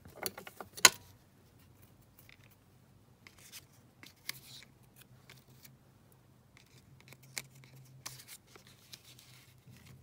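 Scissors cutting paper card: a few quick snips with a sharp click just under a second in, then faint, scattered rustles and ticks of paper pieces being handled.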